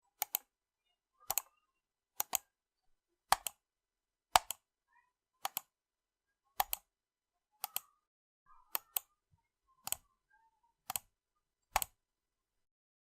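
Computer mouse button clicked about once a second, a dozen times. Each click is a quick double snap: the press and then the release.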